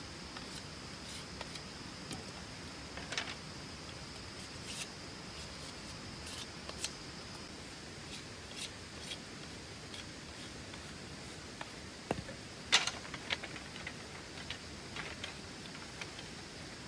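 Scattered light clicks and taps, with a louder cluster of sharp clicks a little past the middle, over a steady background hiss and a faint high steady whine.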